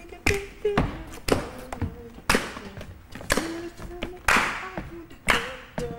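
Steady percussive dance beat of about two hits a second, some hits carrying a sharp bright crack. Short pitched vocal sounds fall between the hits.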